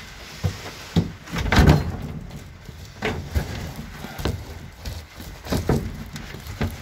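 Irregular knocks, thumps and rustling of things being handled and moved about, the loudest thump about a second and a half in.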